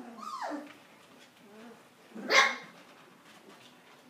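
Puppies at play: a short falling yelp at the start, then one sharp, high puppy bark a little over two seconds in, the loudest sound.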